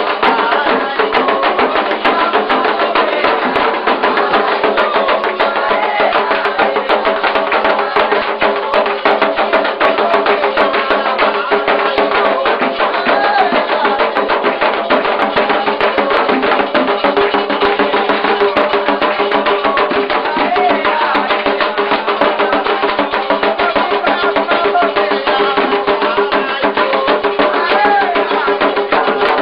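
Candomblé ritual music: atabaque drums playing a steady, densely struck rhythm, with voices singing over them.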